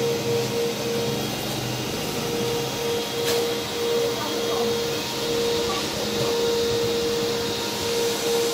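Running power inverter in its cabinet: a steady whir of cooling fans with an electrical hum, its mid-pitched tone pulsing in places.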